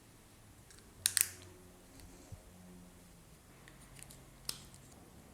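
Small sharp clicks from handling the DJI Mic Mini's parts and accessories: a quick double click about a second in, a faint tick, then another single click later on.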